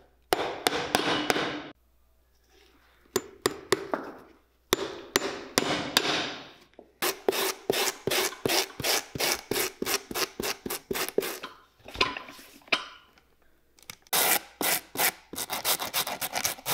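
Hand work rubbing back and forth against a boot in quick, even strokes, about four or five a second, in several bursts with short pauses between them.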